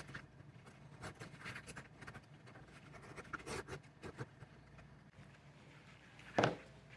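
Leather edge beveler scraping along the edge of a leather knife sheath blank, shaving off thin curls in short, irregular strokes. A single louder knock near the end.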